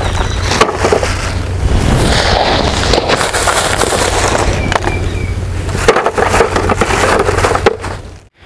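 Wood fire crackling and snapping, with a steady low rumble under it for the first six seconds; the sound cuts off just before the end.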